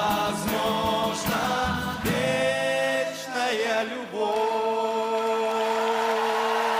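Several voices singing the last notes of a song. The backing beat drops out about two seconds in, and the voices hold long notes, glide down briefly, then sustain a final chord to the end.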